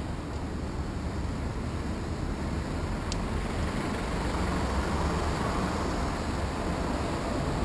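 Street traffic noise of cars and a large truck running close alongside, a steady rumble that swells slightly midway. There is a single short click about three seconds in.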